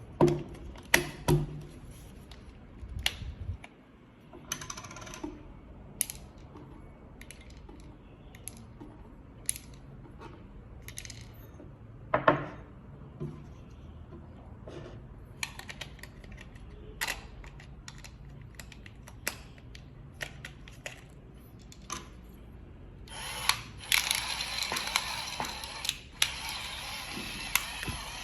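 Scattered sharp clicks and clinks of small hard objects being handled, then, near the end, an electric pepper grinder's small motor starts and runs steadily, grinding.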